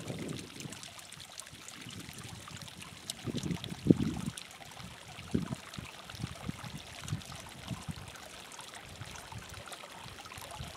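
Hot spring water trickling over travertine rock, a steady light splashing hiss. Brief low rumbles come and go over it, the strongest about four seconds in.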